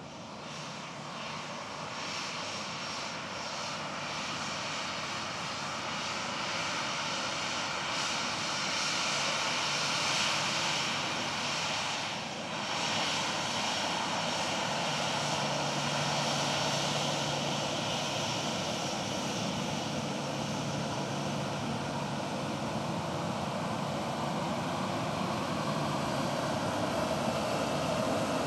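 Jet engines of a Southwest Airlines Boeing 737 arriving, growing louder over the first ten seconds, dipping briefly near the middle, then running steadily with a low hum underneath.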